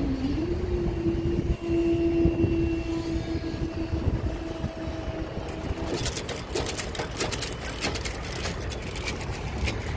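Level crossing barrier mechanism humming at one steady pitch as the boom rises, cutting off about six seconds in. A rapid run of sharp clicks and knocks follows, over a low rumble of wind on the microphone.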